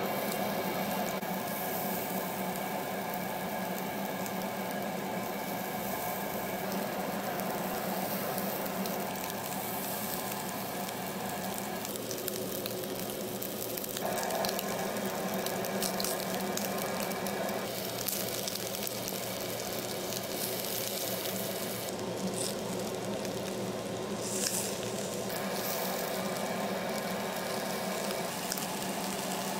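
Hanwoo beef sizzling on a charcoal grill, with steady tones underneath that change every few seconds.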